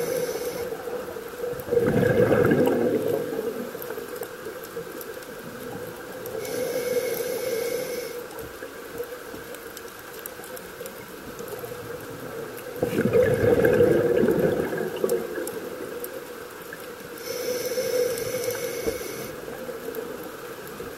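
Scuba diver's regulator breathing underwater: two loud bubbling exhales about eleven seconds apart, each followed a few seconds later by a quieter hissing inhale through the regulator.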